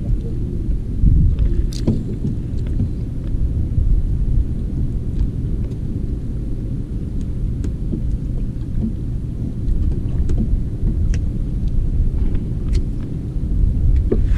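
Strong wind buffeting the microphone: a continuous, uneven low rumble, with a few faint clicks.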